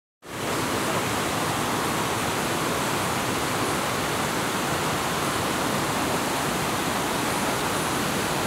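A mountain river rushing over boulders: a steady rush of white water that cuts in just after the start and holds even throughout.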